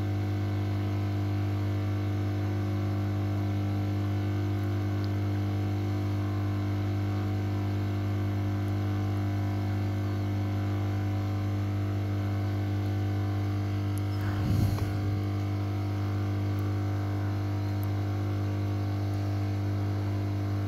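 Hot air rework station blowing steadily, a constant hum over a light hiss, as it heats a surface-mount chip on a motherboard to desolder it. A brief low bump about two thirds of the way through.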